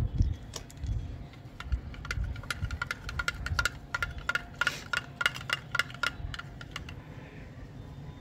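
Metal spoon clicking and scraping against a clear plastic dish while stirring glue and water: a quick, irregular run of light clicks, some with a short ring, over a low rumble.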